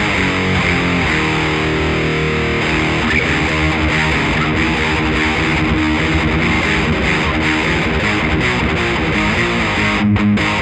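Electric guitar played through an original Marshall The Guv'nor overdrive pedal, with gritty distorted tone. It plays sustained chords and notes, then short choppy strums near the end.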